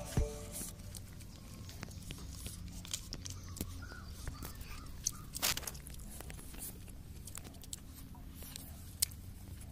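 Close-up eating sounds: scattered soft clicks and crackles of chewing and mouth noises from someone eating with their fingers, with the tail of background music cutting off at the very start.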